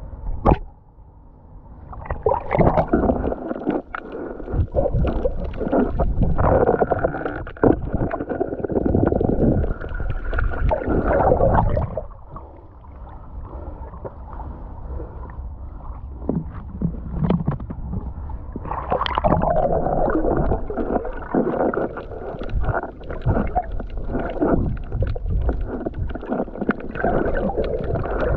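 Sea water sloshing and gurgling around the camera as it moves through shallow water, with many small knocks. It is loud and uneven, briefly quieter about a second in and again near the middle.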